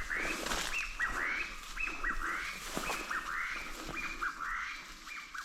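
Chinese bamboo partridge calling, a loud series of repeated notes at about two a second that fades toward the end.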